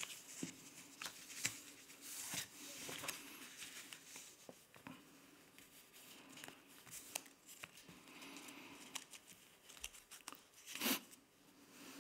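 Sheets of paper rustling as they are handled, turned and laid down on a table, with small scattered clicks and one stronger rustle about a second before the end.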